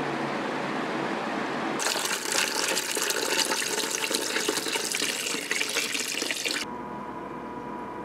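Water splashing and trickling in a bucket of ice water as the small pump circulates it through clear vinyl tubing, for about five seconds after a steady rushing noise. It cuts off abruptly near the end to a quieter steady hum.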